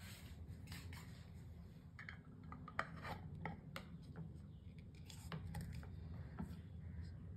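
Metal screw-top lid being fitted and twisted onto a glass jar: scraping and clicking as it rides the threads, with one sharp click about three seconds in.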